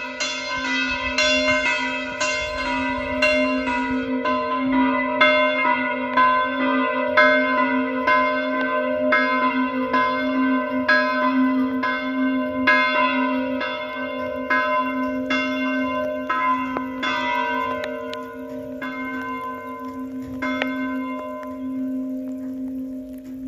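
Two swinging church bells, the larger tuned to B and the smaller to C, ringing a continuous festive peal (distesa) calling to Sunday Mass. Strokes come about one and a half a second, then fall further apart and stop near the end, leaving the bells' hum ringing on.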